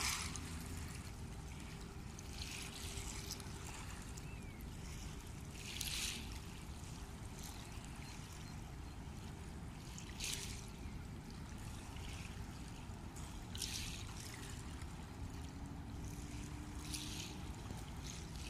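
Small waves on the Rhine lapping and washing against the riverbank, a short splash every three to four seconds, over a steady low rumble of wind on the microphone.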